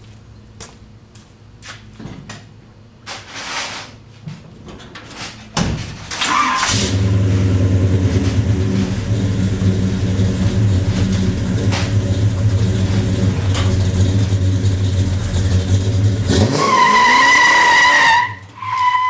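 A 1971 Chevy's engine starts with a rush and runs hard at a steady high speed for about ten seconds. Near the end the revs rise and the tyres squeal twice in a burnout.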